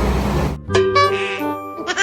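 Background music cuts off suddenly about half a second in, and a different short tune of held, stepped notes follows.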